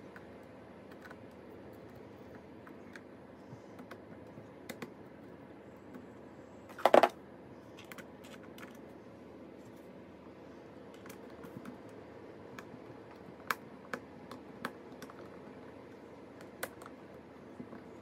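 Scattered small clicks and taps of a screwdriver and plastic laptop parts being handled on a laptop's underside, with a brief louder clatter about seven seconds in.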